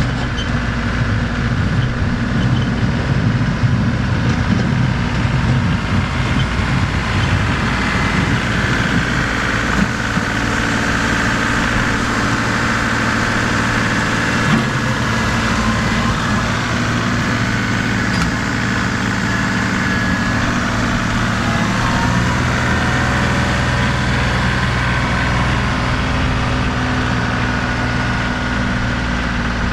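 Compact tractor engine running steadily while it plows snow with its front-loader bucket.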